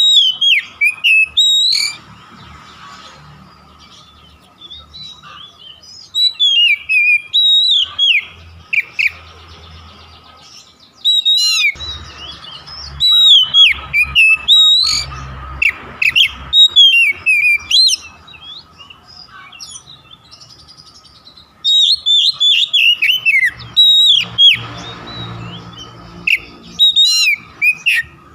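Oriental magpie-robin (kacer) singing: loud bursts of fast, sweeping whistled notes that come in phrases a few seconds long, with short pauses between them. A faint steady hum runs underneath.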